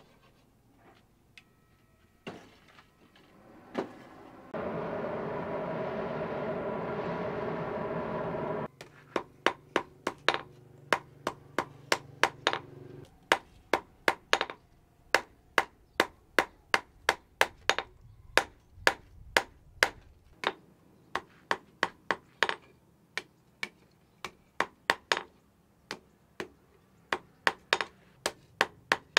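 Hammer blows on red-hot steel, about two ringing strikes a second, as the tang of a machete blade is bent over a steel post anvil. Before the hammering starts there is a steady hum lasting about four seconds.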